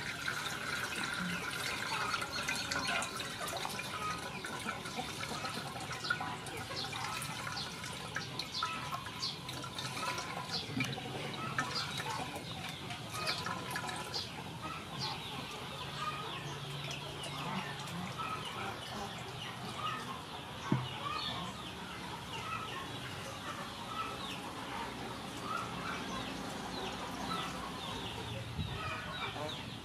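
Coconut milk being made by hand: grated coconut squeezed in water in a metal bowl and the milk poured through a plastic strainer into a metal pot, with splashing and trickling. Birds call throughout, and a single sharp knock comes about two-thirds of the way through.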